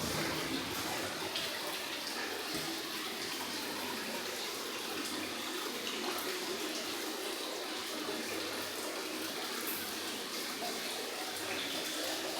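Water running steadily into a bath, a continuous even pour.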